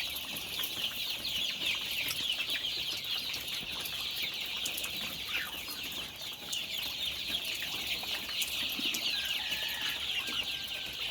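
A large flock of Sonali chickens calling together: a continuous chorus of many short, high, falling peeps overlapping each other.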